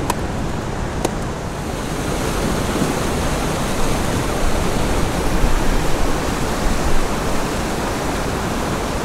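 Steady rushing of the Merced River, its water tumbling over boulders and small rapids into a pool.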